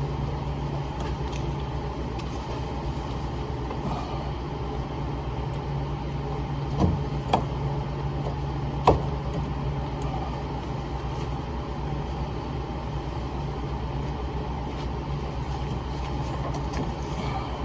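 Steady low hum with a few short clicks and taps as a fuel-line quick-connect clip on a fuel filter is worked loose.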